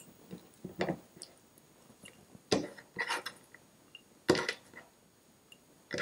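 A few short knocks and clinks as slices of lemon and ginger are picked off a wooden chopping board and dropped into a glass mason jar, the sharpest two about halfway through.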